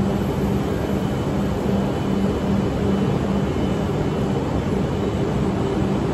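Steady drone of an E5-series Shinkansen standing at the platform with its doors open: a continuous rush of noise with a low hum underneath.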